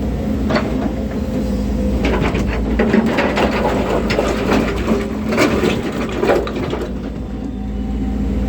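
Volvo excavator's diesel engine running steadily, with a stretch of crunching and scraping from about two seconds in until about seven seconds in, typical of the bucket digging through earth and stones.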